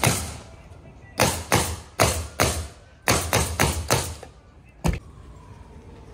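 Pneumatic framing nailer firing nails into roof framing lumber: about a dozen sharp shots in quick runs, a last single shot near five seconds.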